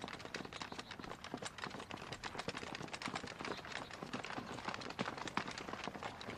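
Footsteps of a column of soldiers walking on a stone path: many overlapping, irregular steps, not in step with one another.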